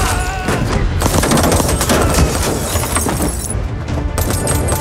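Dense, rapid gunfire from a film's action-scene sound mix: many shots close together, keeping up throughout.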